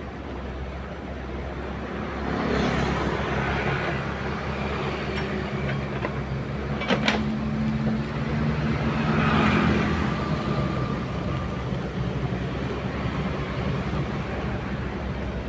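Excavator's diesel engine running while it works, its sound swelling a couple of times, with one sharp clank about halfway through.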